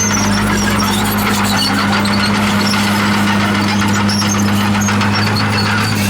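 Komatsu D51PX crawler bulldozer at work: a steady diesel engine drone under high-pitched squeaking and rattling from its steel tracks.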